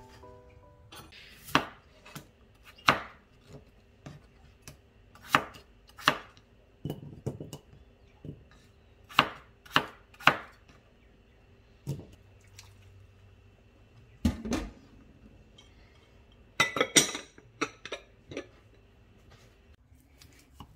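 Kitchen knife cutting peeled potatoes on a wooden cutting board: a series of separate, irregularly spaced knocks of the blade meeting the board, with a quick run of several strokes near the end.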